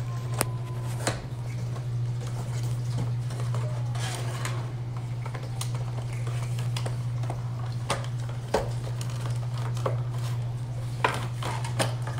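A cardboard Funko Pop box being opened by hand: the top flap is pulled open and the plastic window insert slid out. This gives scattered clicks, scrapes and crinkles over a steady low hum.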